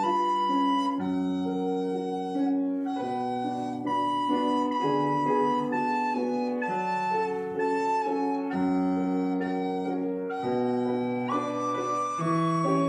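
Recorder playing a melody of held notes, accompanied by piano chords.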